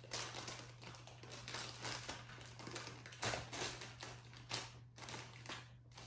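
Clear plastic packaging crinkling and rustling, with irregular light taps and clicks, as hands work a model horse's plastic stand out of its wrapping.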